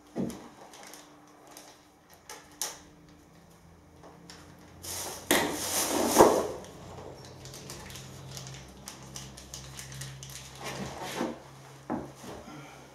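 Rustling of a plastic carrier bag being rummaged through, loudest about five to six and a half seconds in, among scattered knocks and clicks of plumbing fittings and packaging being handled on wooden floorboards. A faint low hum runs through the second half.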